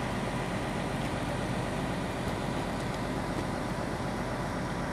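Large tour coach's diesel engine idling steadily while parked.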